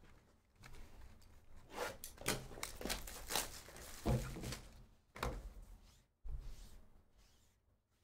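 Plastic shrink wrap being torn and peeled off a cardboard trading-card box, crinkling, with a few thunks as the box is handled. The sounds come in short, irregular bursts and thin out near the end.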